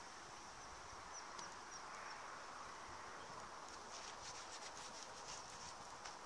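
Faint outdoor insect sound: a steady high chirring, joined in the second half by a quick run of high ticking chirps that lasts about two seconds.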